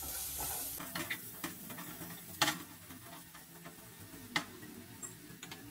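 Wooden spatula stirring and knocking against a nonstick frying pan, with a few sharp knocks, the loudest about two and a half and four and a half seconds in. Under it, the sizzle of chopped garlic and onion sautéing in oil dies away within the first second.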